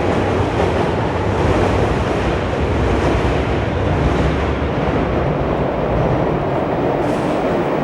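Electric commuter train running alongside the station platform, a steady rumble that grows a little heavier in the low end midway.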